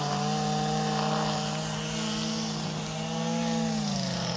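Small engine of a garden power machine running steadily, its pitch sagging slightly near the end.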